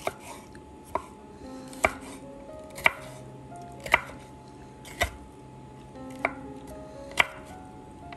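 Chef's knife slicing a bell pepper into strips, the blade hitting a wooden cutting board in eight sharp chops about one a second. Soft background music plays underneath.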